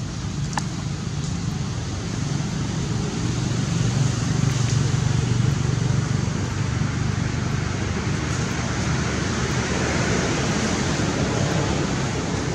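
Steady low rumble under an even hiss, swelling a few seconds in and again later, with one faint click just after the start.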